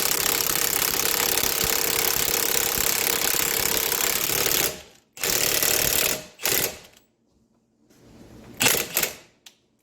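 Impact wrench hammering as it drives the screw of a bearing press tool, pressing a front wheel bearing into a steering knuckle. It runs steadily for about four and a half seconds, then comes in three shorter bursts with pauses between them.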